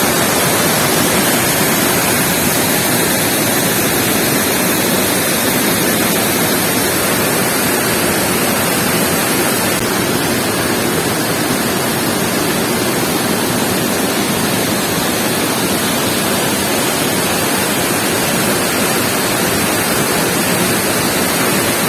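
Waterfall: a steady, loud rush of water falling onto rocks, with no breaks or changes.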